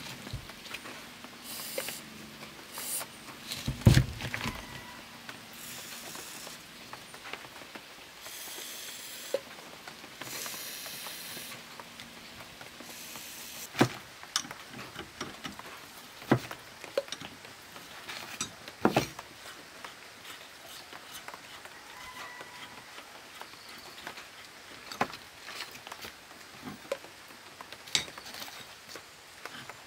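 Hand work on a workbench: scattered light knocks and clicks, the loudest about four seconds in, with two short rasping scrapes about eight and ten seconds in.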